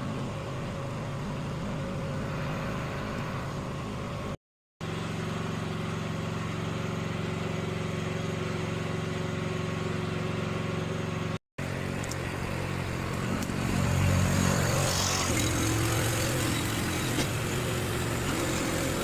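Engine of the truck hauling a modular building section, running steadily, louder over the last few seconds. Two brief drop-outs break it.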